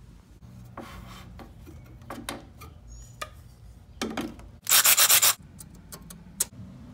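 Scraping and rubbing handling noises, with one loud rasping scrape of under a second about five seconds in.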